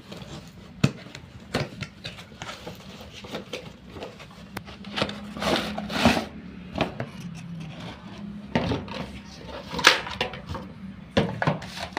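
Cardboard toy-car box with a plastic window being handled and opened: irregular taps, scrapes and rustles of card and plastic, with sharp knocks about a second in and near ten seconds.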